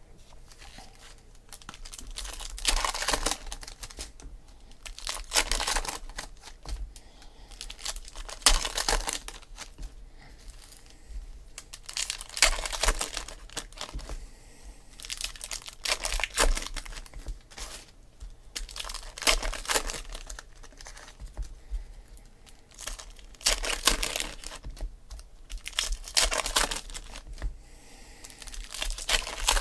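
Foil wrappers of 2008 SP Authentic baseball card packs being torn open and crinkled, one pack after another, in loud crackling bursts every few seconds with softer rustling of wrappers and cards between.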